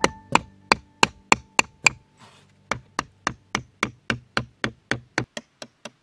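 Small hammer driving a nail through the wall of a cardboard box, with the other hand bracing it from inside: a quick, even run of sharp taps, about three or four a second. The taps pause briefly just after two seconds in, then start again and grow fainter toward the end.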